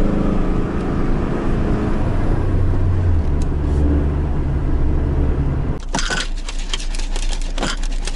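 GAZelle Next van's engine and road noise heard inside the cab while cruising, a steady hum whose low note shifts about three seconds in. Near six seconds the sound changes to a run of sharp clicks and knocks over a quieter hum.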